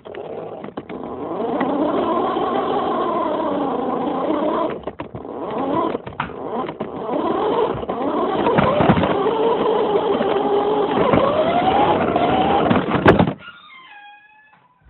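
Electric motor of a radio-controlled toy car whining as it drives, its pitch rising and falling as it speeds up and slows. It cuts off suddenly about 13 seconds in, leaving a few faint short chirping tones.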